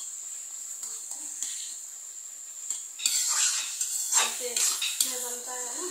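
A metal spatula stirring and scraping thick mashed pumpkin sabzi around a kadhai over a steady high hiss. The scraping and clinking strokes get louder and come thick and fast from about halfway in. The sabzi is being stirred constantly on high heat to dry off its water and keep it from sticking.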